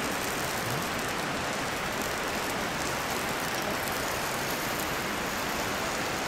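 A mountain stream flowing, a steady even rush of water with no breaks.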